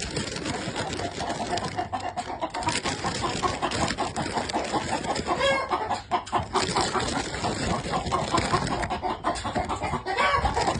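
Chickens clucking, with many short calls overlapping and a higher chirp about halfway through.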